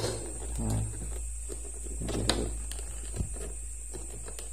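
Latch of a Kenmaster 17 plastic toolbox snapping shut with one sharp click about two seconds in, with a lighter click at the start and a low knock of the plastic case being handled, over a steady low hum.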